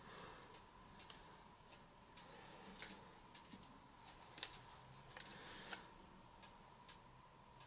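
Faint, scattered small clicks and light taps, irregularly spaced, the loudest about halfway through, from handling paint cups and tools at the painting table; a faint steady hum underneath.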